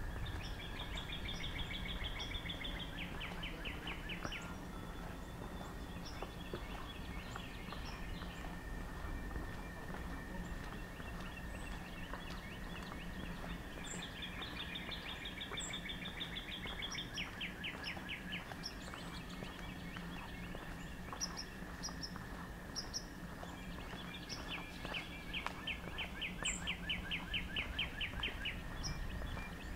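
A songbird singing a trilled song three times, each a few seconds of fast trill breaking into slower, separate notes, with other birds chipping briefly and high now and then. A steady high tone runs underneath.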